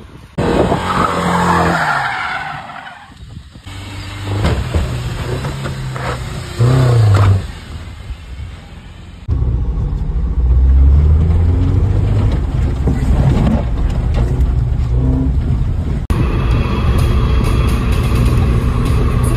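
Mk2 Renault Clio's engine revving hard, rising and falling in pitch, with tyres skidding, heard as a string of short clips with abrupt cuts between them.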